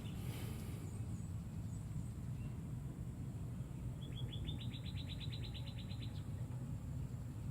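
A songbird sings a rapid trill of about twenty quick notes, lasting about two seconds, about four seconds in, with a few faint chirps earlier. It sits over a steady low rumble.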